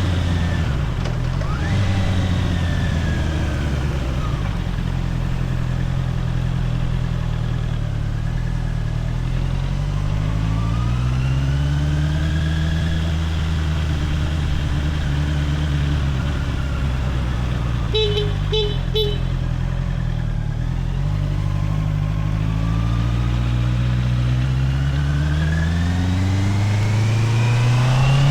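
Honda CBR650R's inline-four engine with stock exhaust under way, its pitch falling and rising as the bike slows and then accelerates twice, climbing steadily near the end. A horn gives three short toots about two-thirds of the way through.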